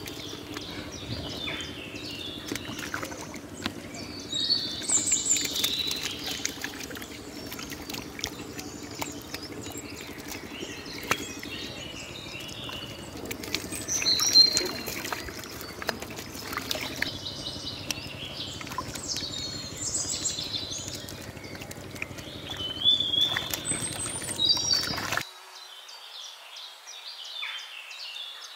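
Birds chirping in repeated short phrases over the splashing and slapping of catfish thrashing in shallow muddy water. The low background drops away abruptly near the end, leaving mostly the birds.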